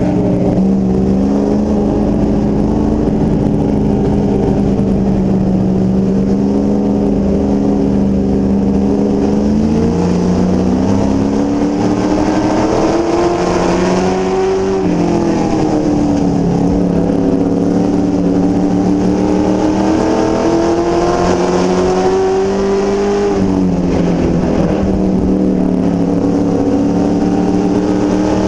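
NASCAR race truck's V8 engine heard from inside the cab, loud and continuous. It holds a steady pitch for about nine seconds, then climbs as the truck accelerates. The pitch drops sharply about fifteen seconds in as the driver lifts, and again a little past twenty-three seconds, before climbing once more near the end.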